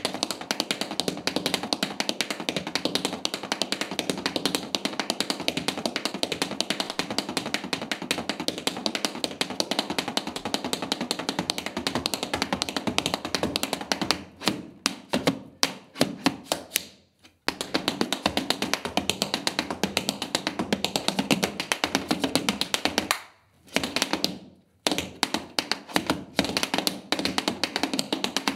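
Metal taps on tap shoes striking a wooden floor in a fast, dense tap-dance rhythm. About halfway through, the taps thin out into sharper, separated strikes with two short stops, then rapid runs start again.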